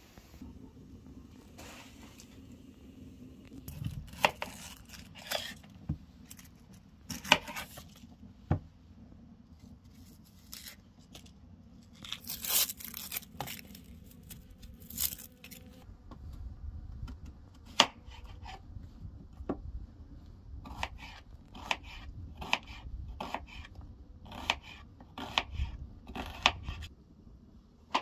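Dry red onion skin crackling and tearing as it is peeled by hand: irregular sharp crackles and clicks, with a longer tearing rustle about halfway through.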